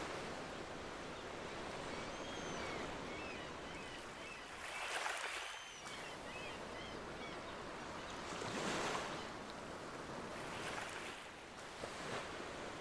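Ocean waves washing onto a beach: a soft, steady surf hiss that swells in gentle surges about five, nine and eleven seconds in.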